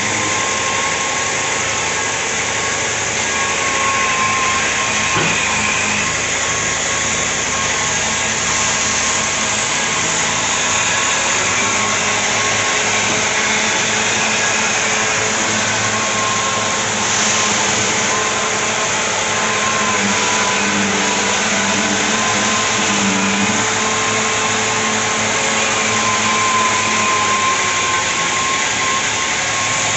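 Power sander running continuously against a Mahindra Jeep's body panels during bodywork prep: a steady motor whine over a hiss of abrasive on the panel, its pitch wavering slightly as it is pressed and moved.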